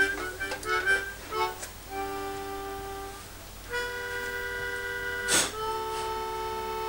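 Free-reed instrument music, reedy like a harmonica or accordion: a few quick short notes, then long held chords. A short breathy rush of noise cuts through about two-thirds of the way in.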